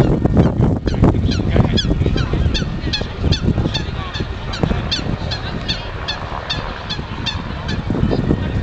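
Geese honking, many short calls a second in a continuous chorus, over a low steady rumble.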